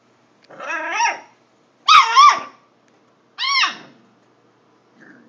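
A puppy giving three short high-pitched cries about a second apart, each rising and then falling in pitch.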